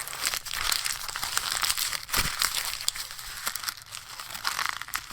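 Paper being crumpled and rustled: a dense, continuous run of fine crackles.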